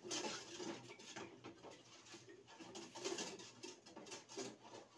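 Long-handled spoon stirring a pan of milk and sugar as it cooks into manjar, scraping and knocking faintly against the sides and bottom of the aluminium pan. A soft, low sound repeats in the background.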